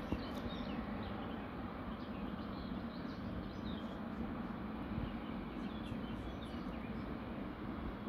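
Steady low rumble of a distant Boeing 777 freighter's twin jet engines at taxi power, with small birds chirping over it again and again.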